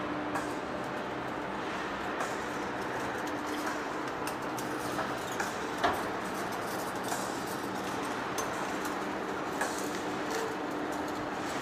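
Heavy-duty lathe running with a steady machine hum and a faint steady tone. Scattered light clicks come through, the sharpest about six seconds in.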